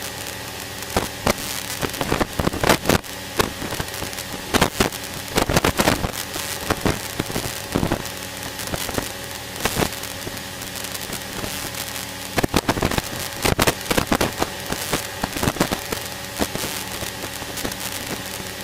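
Steady drone of a Cessna's piston engine in the cabin, with irregular bursts of sharp crackling clicks over it.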